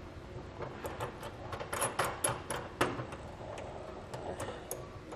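Light metallic clicking and clinking of steel washers and a nut being fitted by hand onto a carriage bolt, a scatter of sharp ticks that come thickest in the middle, the loudest a little before three seconds in.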